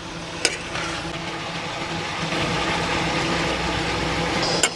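An engine idling with a steady low hum, over a steady sizzle of chicken frying in oil in a pan. Two sharp clicks, one about half a second in and one near the end.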